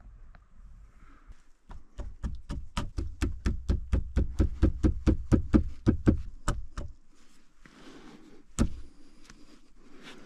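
A quick, even run of about twenty knocks, about four a second, growing louder and then fading, followed a little later by one sharp knock.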